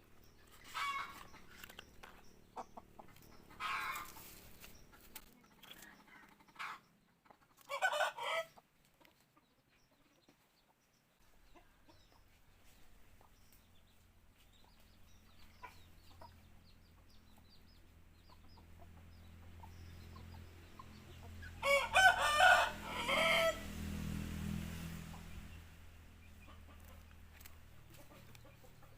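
Jungle fowl calling: a few short calls in the first eight seconds, then a louder run of harsh calls about 22 seconds in.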